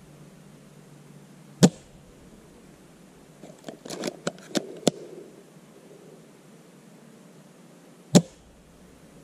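Two shots from a spring-powered bolt-action airsoft sniper rifle (Classic Army SR-40), each a single sharp crack, about six and a half seconds apart. Between them, about four seconds in, a quick run of clicks as the bolt is cycled to re-cock the spring.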